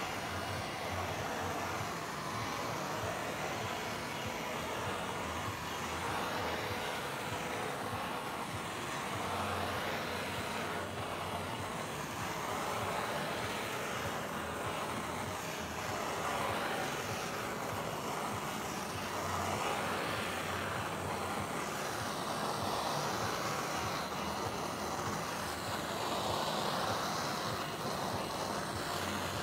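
Handheld propane torch burning with a steady hiss, swelling and easing slightly as the flame is swept over freshly poured epoxy resin to pop the bubbles in its surface.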